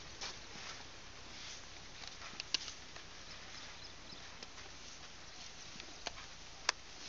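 Asian elephants shuffling at close range: a faint steady rustle with a few sharp clicks, the loudest near the end.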